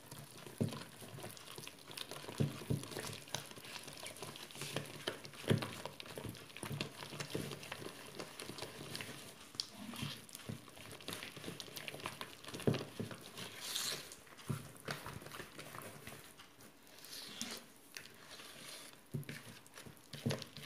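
A hand mixing soft butter, sugar and egg-yolk dough in a plastic bowl: irregular soft squelches and light knocks against the bowl.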